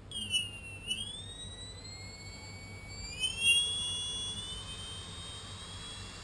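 Brushless drone motor sold as a Tarot 4006 spinning with a high-pitched whine. The whine dips and then rises near the start, climbs again about three seconds in, and then holds steady. The whine is very noisy, and the uploader puts it down to probably bad bearings in what he says are counterfeit motors.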